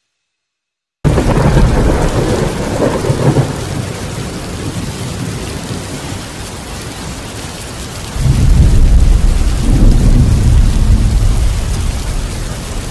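Thunderstorm: steady rain and rolling thunder that come in suddenly after a second of silence, with a heavier, deep rumble of thunder starting about eight seconds in.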